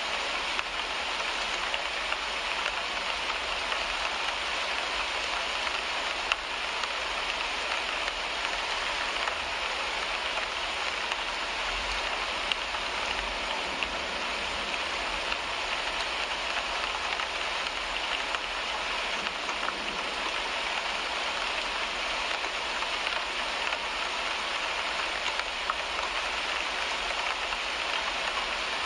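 Steady rain falling on a car windshield: an even hiss with faint scattered drop ticks.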